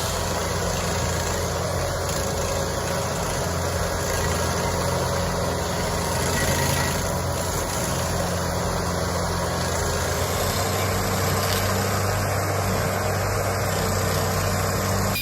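Heavy engine running steadily at low revs, its pitch dropping slightly about ten seconds in.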